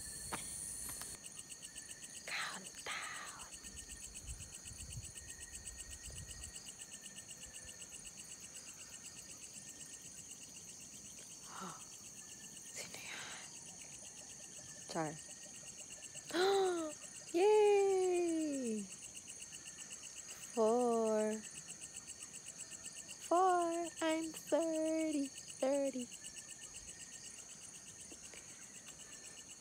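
Night chorus of crickets and other insects: a steady high trill throughout. From about halfway in, a handful of short, louder voice-like calls that fall in pitch cut in over it.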